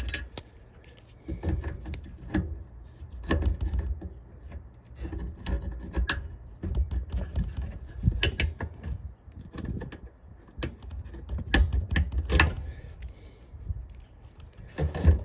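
Scattered clicks, knocks and light scraping of hand tools and metal parts as a 1955 Chevy heater box is worked apart, over a gusty low rumble of wind on the microphone.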